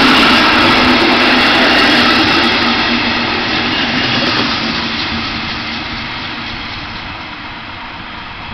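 A DB Class 143 electric locomotive and its double-deck regional coaches running past on departure, a steady rushing train noise with a low hum at first. It grows steadily fainter as the train pulls away.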